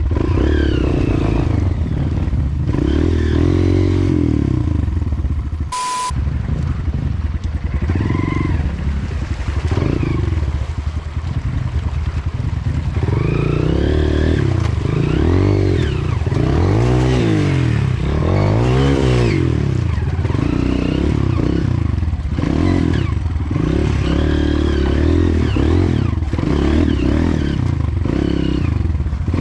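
Motorcycle engine running as it is ridden, its pitch rising and falling again and again with throttle and gear changes.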